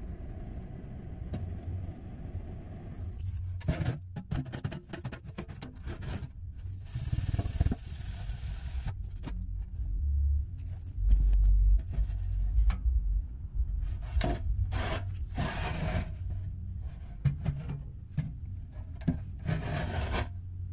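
Small handheld butane torch hissing as its flame plays on the bare sheet-metal lunch box, mixed with scrapes and knocks of the box being handled and turned on the bench, and a few low thumps near the middle.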